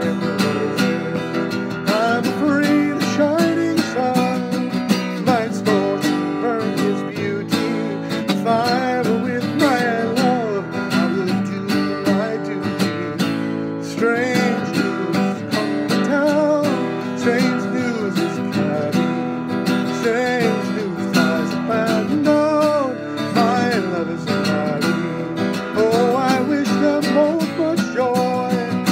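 Strummed acoustic guitar with a man singing a slow folk ballad over it.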